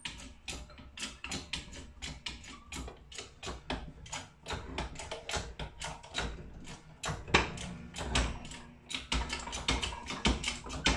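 A keyway broach being pressed through a small gear's bore, clicking sharply as its teeth cut, about four or five clicks a second, with a few low thumps.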